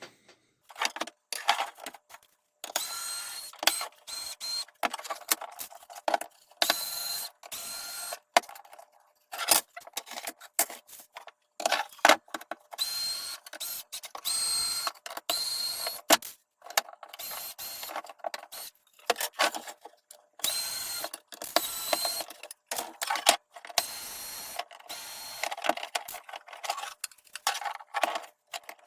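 Cordless drill-driver running in many short bursts, each with a high whine, with sharp clicks in between, as screws are backed out to take apart a shelf.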